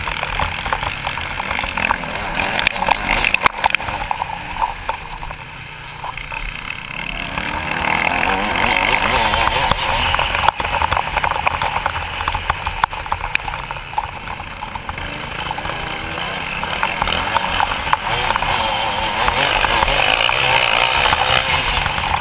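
Motocross bike engine running hard under the rider, its note dropping twice as the throttle is rolled off and climbing again as the rider accelerates, with wind rush and frequent knocks from the rough track.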